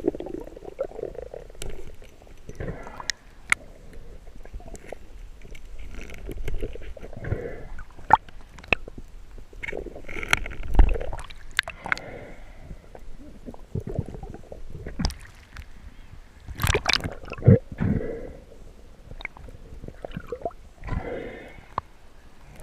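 Water sloshing and gurgling around the diver's camera, with scattered sharp clicks and knocks.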